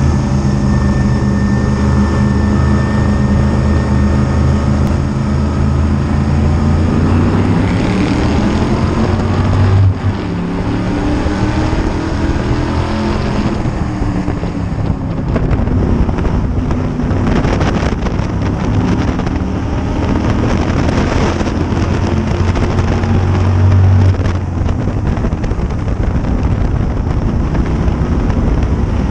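Modified race car's V8 engine at racing speed in traffic, with wind buffeting the roof-mounted microphone. The revs climb, then drop suddenly about ten seconds in and again some fourteen seconds later, as the driver lifts for the turns.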